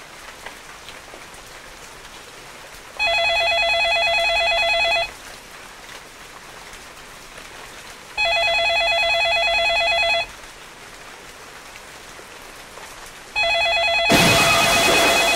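Telephone ringing sound effect: three trilling rings about two seconds long with roughly three-second gaps, over a low steady hiss. Near the end the third ring is cut short by a loud rushing noise that stops abruptly.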